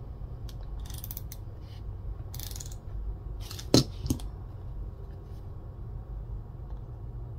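Small handling sounds at a table: a few soft clicks and short scrapes, with one sharper click a little under four seconds in, over a steady low hum.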